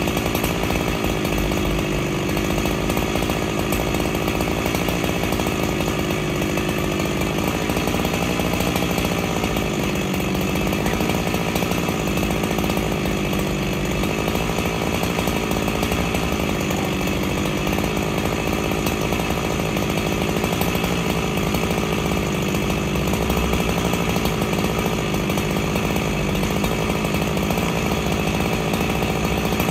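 Freshly rebuilt Husqvarna 365SP chainsaw's two-stroke engine idling steadily; the saw is still breaking in.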